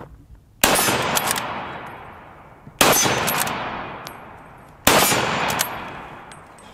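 Three 8mm Mauser rifle shots from a Gewehr 98 bolt-action rifle, about two seconds apart, each report echoing away over about two seconds. Short clicks of the bolt being worked follow each shot.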